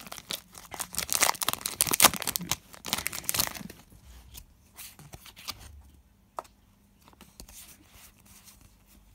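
Foil Pokémon booster pack being torn open and crinkled for about the first three and a half seconds. Then faint rustling of the cards being handled, with one sharp click about six seconds in.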